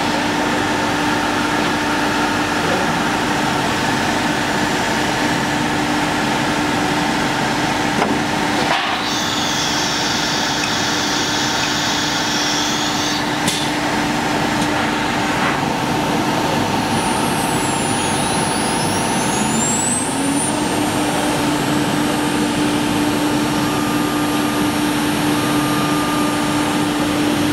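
CNC router's 9 kW spindle running as it mills grooves into a wooden board: a steady whine over the noise of the cutting. About twenty seconds in, the whine's pitch dips and climbs back.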